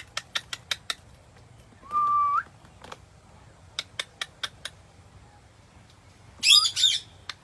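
Pet parrot whistling once, a steady note that rises at its end, about two seconds in, then giving a loud shrill screech near the end. Runs of quick sharp clicks come between.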